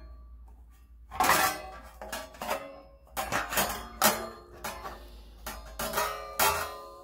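Tin snips cutting thin embossed sheet metal: a sharp snip roughly every half second, each leaving the sheet ringing briefly.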